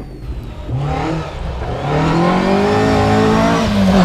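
Talbot Sunbeam rally car's engine accelerating hard out of a square left bend, revs climbing and holding, then dropping sharply near the end at an upshift.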